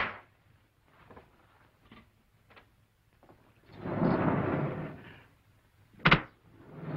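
A sliding wall panel rumbling open and then shutting with a sharp knock about six seconds in, with a similar knock at the very start and a few faint footsteps in between.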